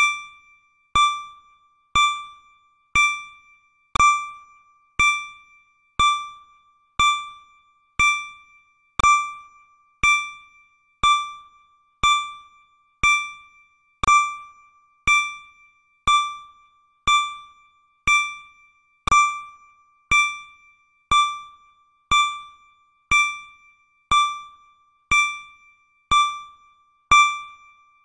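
Countdown timer sound effect: a short, bell-like electronic beep once every second, each fading quickly, all on the same pitch.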